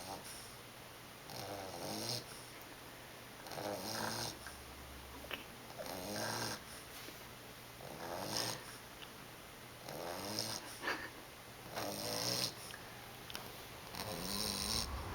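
English Bulldog puppy snoring in an even rhythm, one snore roughly every two seconds, about seven in all.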